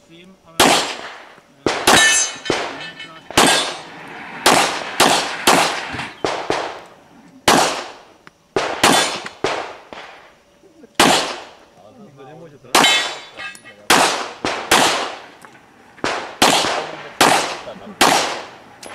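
Pistol gunfire during a practical-shooting stage: about thirty sharp shots, many fired as quick pairs, with short pauses between strings.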